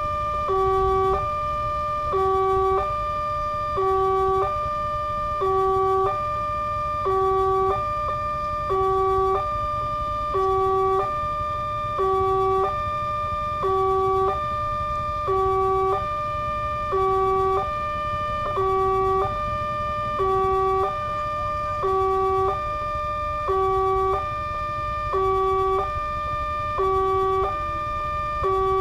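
Electronic level-crossing warning alarm sounding a repeating two-note tone, a lower note alternating with a higher one about every 1.7 seconds, warning that a train is approaching while the barrier is down.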